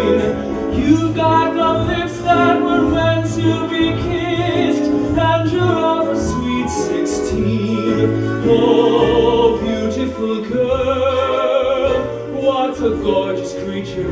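A show tune sung to a theatre orchestra, the voice holding long notes with vibrato over the accompaniment.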